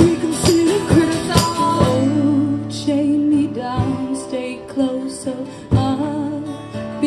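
Live band music: rhythmic strokes over guitar for the first two seconds or so, then sustained chords with a wavering melody line over them, and a few more strokes near the end.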